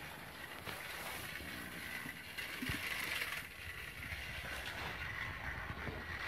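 Battery-powered TrackMaster Spencer toy train running along its plastic track, its small electric motor and gears whirring steadily, a little louder about three seconds in.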